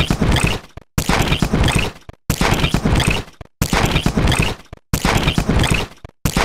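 Electronic device glitch sound effect: a burst of crackling, stuttering digital noise about a second long that fades and cuts to silence, repeated about every 1.3 seconds.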